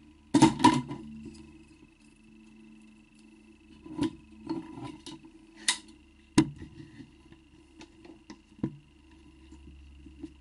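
Wooden leather-forming mould being handled on a workbench: a loud clatter of wood knocking about half a second in, then several single sharp knocks spread through the rest, over a faint steady hum.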